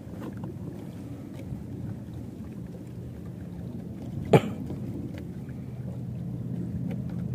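Low steady hum of a boat's engine, with one sharp knock about four seconds in.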